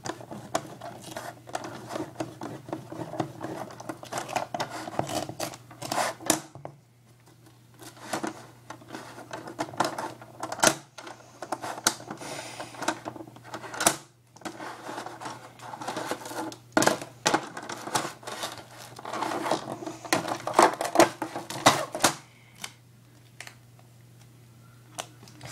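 Duct tape being handled and worked by hand into a bow: irregular clicks, rustles and scrapes of the tape, in bouts with short pauses, the last few seconds nearly still. A steady low hum runs underneath.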